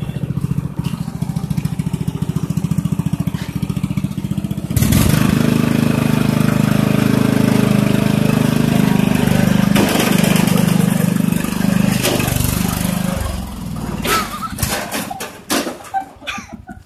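Lawn mower engine running steadily, then opened up about five seconds in and held at higher, louder speed. It falls away again after about thirteen seconds, followed by several sharp knocks as the engine sound dies out near the end.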